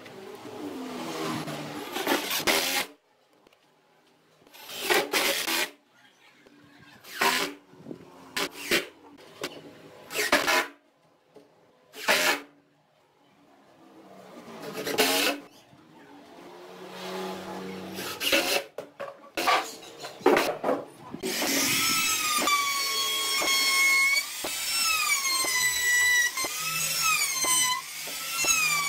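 Cordless Makita impact driver driving screws into wood in a series of short bursts with pauses between. About three-quarters of the way in, a continuous high whine takes over, rising and falling in pitch every second or so.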